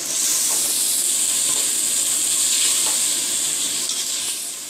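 Sauce-coated pieces sizzling hard in a hot frying pan while being stirred; the sizzle jumps up right at the start and stays steady, with a few faint ticks of the spoon.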